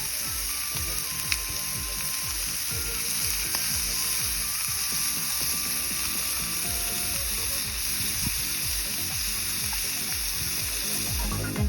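Steady sizzling hiss, like food frying in a pan, with rapid low clicking underneath.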